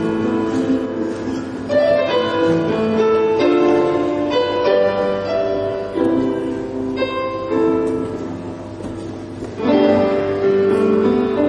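Grand piano playing slowly, with notes and chords struck every fraction of a second and left to ring.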